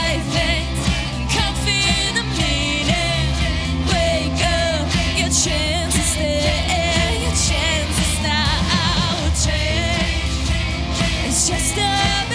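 Live pop-rock band with a woman singing lead into a microphone, her voice wavering with vibrato over electric guitars, drums and keyboard at a steady beat.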